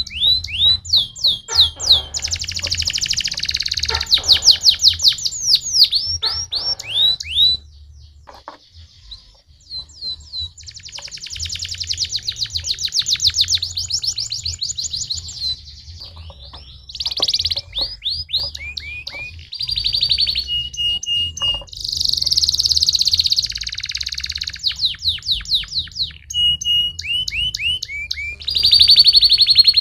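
Domestic canary song: fast runs of rapidly repeated sweeping notes and rattling trills, with a short pause about a third of the way through.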